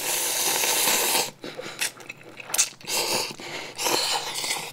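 A person slurping instant ramen noodles with one long, noisy slurp of about a second and a half, followed by several short wet chewing and slurping sounds.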